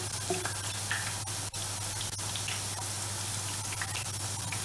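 Potatoes frying in hot oil in a pan, a steady sizzling hiss, with a few light clicks from a knife quartering mushrooms by hand.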